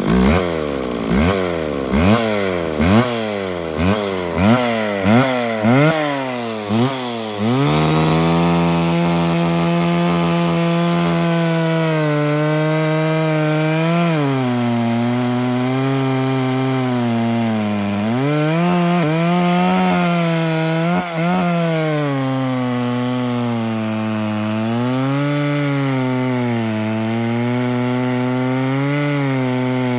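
Two-stroke McCulloch chainsaw revved in a quick run of throttle blips for about seven seconds, then held at full throttle and cutting into a log, its engine note dipping briefly several times as the chain loads up in the wood.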